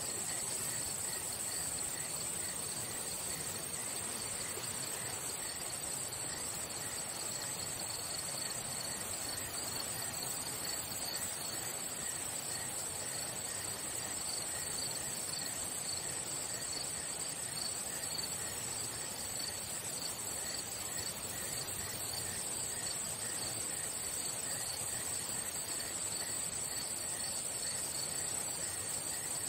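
Singing insects in a steady chorus: one unbroken, high-pitched buzz, with a fainter pulsing trill beneath it.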